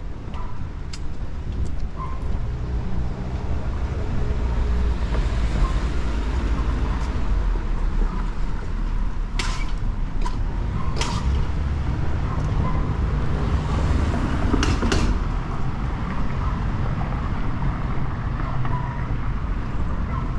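Street traffic on a city avenue: a steady low rumble of vehicles that swells as cars pass, about five seconds in and again about thirteen seconds in, with a few sharp knocks in the middle.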